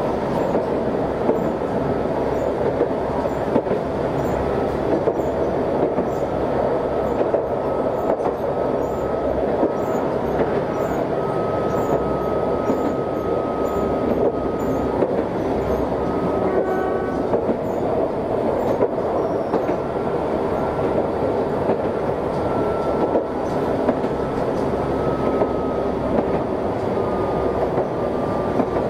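Chikuho Electric Railway tram running along the line, heard from inside the car: a steady rumble of wheels on rail with a thin high whine that drifts in pitch and falls slightly near the end, and occasional faint clicks over the rail joints.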